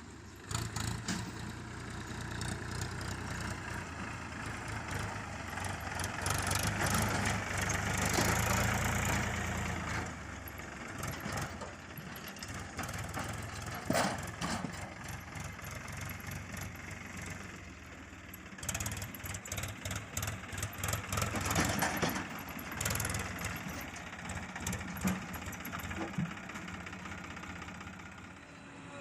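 Diesel engine of a JCB backhoe loader running and rising in revs as it works, with a sharp knock about a third of the way in and bursts of clatter a little later.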